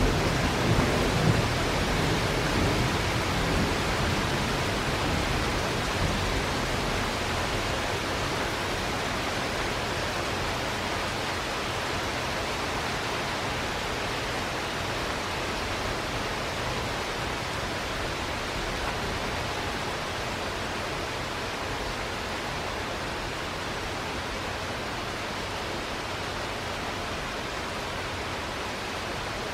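Heavy steady rain during a thunderstorm, slowly easing. The low rumble of a thunderclap dies away in the first couple of seconds.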